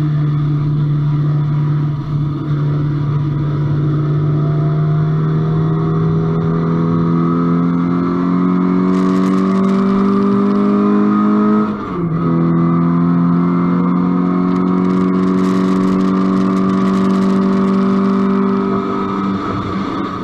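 Track car's engine at full throttle, pitch climbing slowly as it pulls through the revs, then dropping sharply with an upshift about twelve seconds in and climbing again before easing off near the end. A hiss of wind rises over it at the highest speeds.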